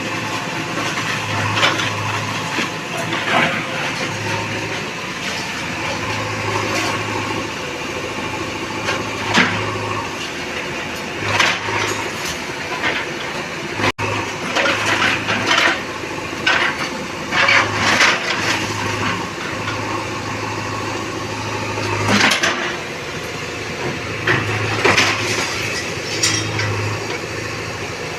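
A JCB backhoe loader's diesel engine running steadily, with irregular clatters and crashes of breaking masonry and falling debris as the machine knocks down a building.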